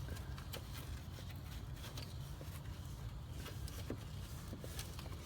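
Faint scattered clicks and rubbing as a plastic turn-signal bulb socket is twisted counterclockwise to release it from its housing, over a steady low rumble.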